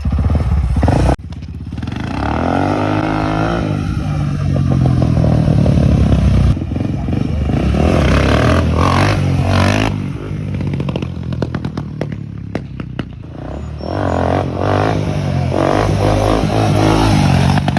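Motorcycle engine running close by, revving up and down several times, with a sudden cut about a second in.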